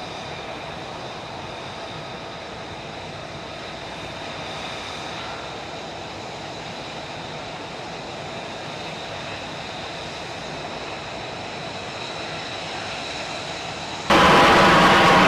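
Steady jet aircraft engine noise with a faint high whine. Near the end it cuts abruptly to much louder jet noise.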